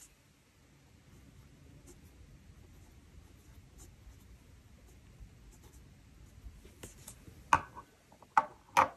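Fountain pen nib scratching softly across planner paper, writing a short phrase in light, irregular strokes. Near the end come three sharp clicks.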